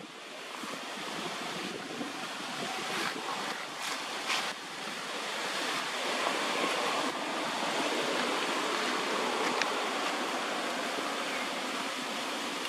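Steady rushing noise of wind, through the trees and over the microphone, slowly swelling, with a few brief clicks or rustles about three to four seconds in.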